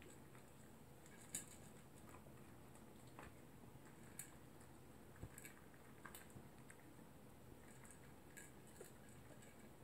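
A small dog eating from its food bowl: faint, irregular clicks and crunches of chewing and of food knocking in the bowl.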